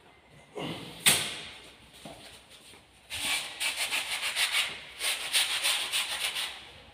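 A sharp knock about a second in, then a quick run of short scratchy rubbing strokes against a hard surface for a few seconds, with a brief break in the middle.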